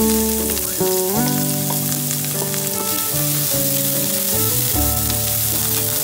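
Diced onion sizzling steadily in hot chicken fat in a frying pan, stirred with a wooden spatula, with background music playing over it.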